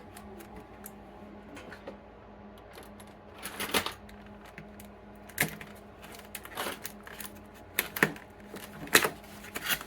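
Handling and unboxing of a book safe: scattered sharp clicks and knocks, roughly a second apart in the second half, over a faint steady hum.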